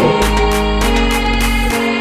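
Background music with a steady beat, bass line and sustained chords.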